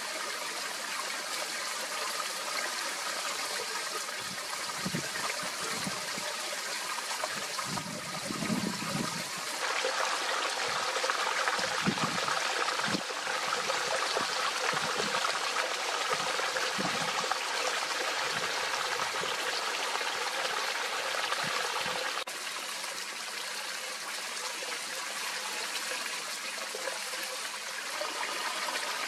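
Shallow mountain stream at very low flow, trickling over rocks in a steady watery hiss. There are faint low bumps now and then.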